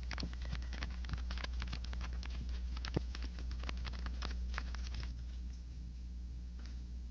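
Paper craft pieces being handled: a quick, irregular run of light taps and crinkles for about five seconds, with one sharper tap about three seconds in, then it stops.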